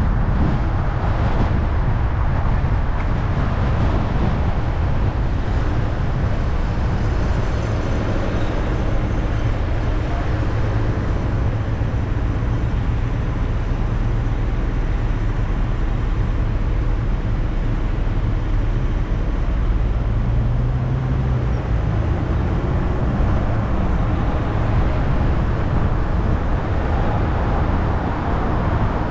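A car driving along at a steady pace: a low, even engine and drivetrain hum over tyre and road noise.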